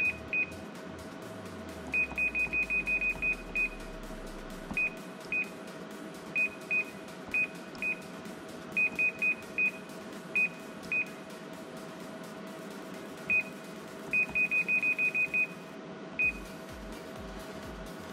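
Konica Minolta C3070 touchscreen control panel beeping as its on-screen buttons are pressed: short high beeps of one pitch, some single and some in quick runs of half a dozen or more, over a steady machine hum.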